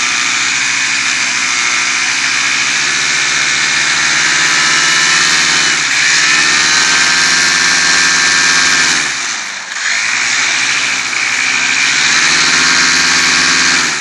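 Paramotor engine and propeller running at high throttle. The pitch dips briefly about six seconds in, and more deeply near ten seconds, as the throttle is eased and opened again. The engine throttles down at the very end.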